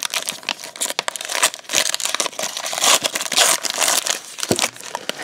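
Foil wrapper of a 2018 Topps MLS trading-card pack being torn open and crinkled by hand: a dense run of sharp crackles and rips that thins out near the end.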